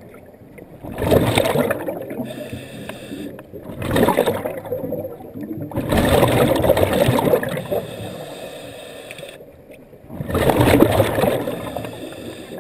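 Scuba diver breathing underwater: exhaled air bubbling out of the regulator in about four loud bursts of a second or two, with quieter gaps between breaths.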